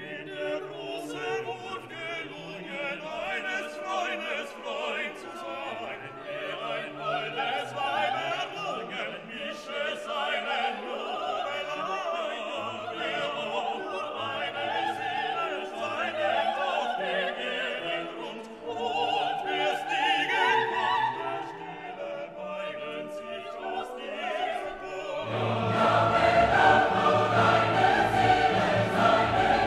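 Orchestral music with a choir singing in an operatic style, becoming fuller and louder about 25 seconds in.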